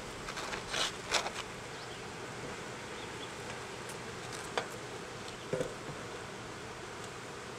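Steady buzzing hum, broken by a few brief clicks and rustles about a second in and again around four and a half and five and a half seconds.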